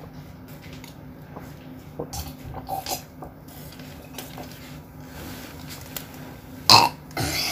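A child gulping water from a cup, with small swallowing sounds, then a loud burp near the end.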